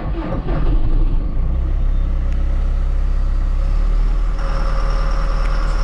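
John Deere tractor's diesel engine just after starting on a battery that had been flat, running unevenly for about the first second, then settling into a steady idle. A higher hum joins about four seconds in.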